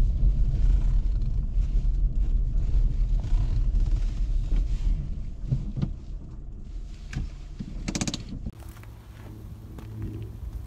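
Car driving on a gravel road, heard from inside the car: a low rumble of engine and tyres that fades after about five seconds. A few knocks and a brief rattle follow about eight seconds in, then a fainter steady hum.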